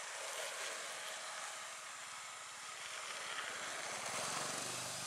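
Steady outdoor background hiss with no distinct event, and a faint low hum joining about four seconds in.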